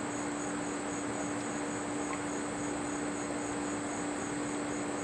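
Insects, such as crickets, trilling steadily over an even background hiss, with a steady low hum running underneath.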